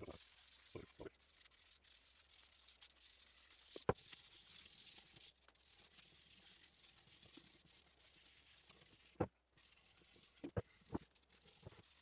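Light hand-sanding of a finish-coated wooden gun stock with 400-grit sandpaper, a faint steady scratchy hiss. It scuffs down uneven gloss between finish coats, and a few sharp clicks break in near four seconds and again around nine to eleven seconds.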